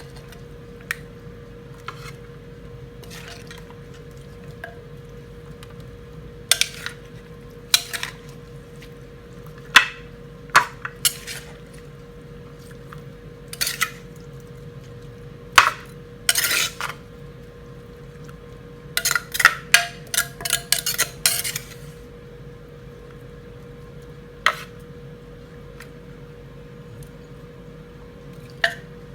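Utensils clinking and scraping against a mortar and plate as papaya salad is scooped out and served: scattered sharp clinks, with a quick run of them about two-thirds of the way through, over a steady faint hum.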